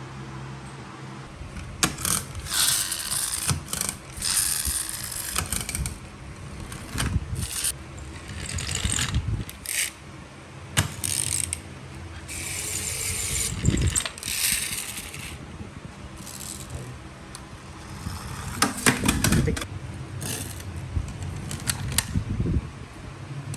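Plastic pull-back toy cars being handled and run: clicks and rattles of plastic, with several short whirring runs of the spring-wound pull-back gear motors.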